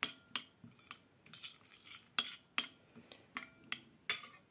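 Metal spoon stirring cereal flakes in a glass bowl, clinking against the glass about two to three times a second, some clinks leaving a brief ring.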